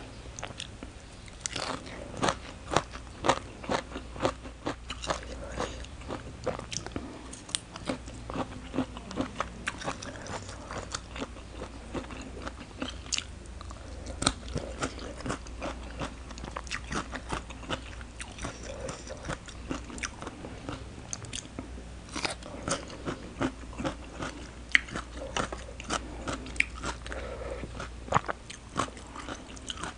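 Close-miked mouth sounds of someone eating shredded green mango salad, crisp crunches and chewing in a rapid, irregular run of several bites a second.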